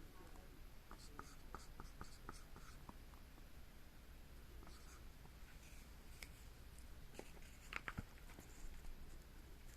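Faint small clicks and scratchy taps over a quiet low room hum. There is a quick run of them in the first few seconds, and a couple of sharper ones near the end.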